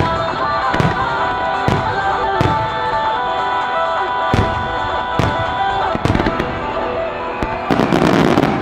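Aerial firework shells bursting with sharp bangs about once a second over music with sustained tones. Near the end the bangs give way to a dense, rapid crackling.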